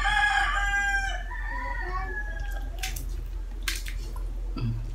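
A rooster crowing: one long crow that tails off and stops about two and a half seconds in. Two short hissy noises follow.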